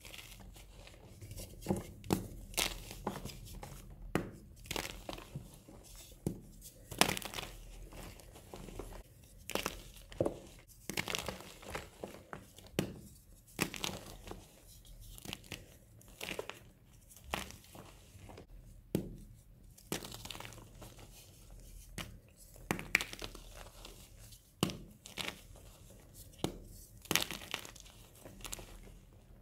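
Blocks of gym chalk crushed and crumbled in bare hands: a run of irregular, crisp crunches and crackles as chunks snap apart and break down into powder.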